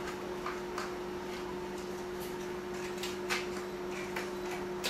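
Scattered light clicks and taps of small hard taco shells being picked up and set on a plate, over a steady low hum.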